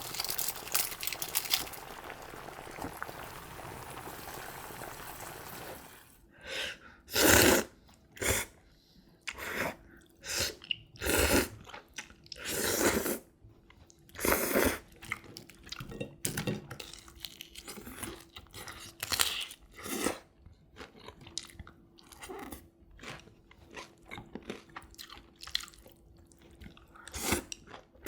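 A steady hiss for the first few seconds, then close-miked crunching and chewing of crispy fried pork (guobaorou). Loud crunches come every second or two, with quieter chewing between them.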